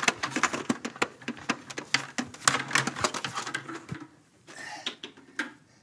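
A quick, irregular run of sharp clicks and knocks for about four seconds, then quieter, with a short rustle and a couple of single clicks as a portable boombox is set down on a carpet.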